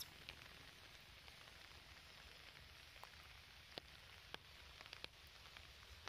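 Near silence: faint outdoor background hiss with a few scattered small clicks and ticks.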